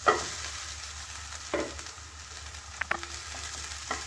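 Vegetables sizzling in a non-stick pan as vermicelli (semai) is tipped in from a bowl and stirred in with a spatula. A loud knock against the pan comes right at the start, then a few lighter knocks and clinks from the bowl and spatula.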